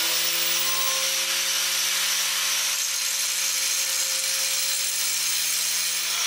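Angle grinder running at full speed with a steady whine, its disc grinding down the rounded-off end of a steel 24 mm socket to make it flat.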